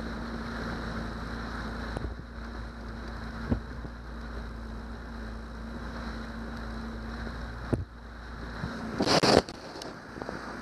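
Johnson 90 hp V4 two-stroke outboard running steadily as the boat moves along, with wind and water noise over it. About eight seconds in the steady hum drops away, followed by a brief loud rustle of handling noise as the camera is moved.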